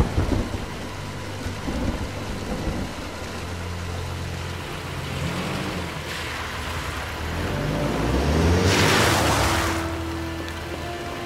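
Dramatic film score of low held notes that shift in pitch, over steady rain, with a loud rushing swell about eight seconds in.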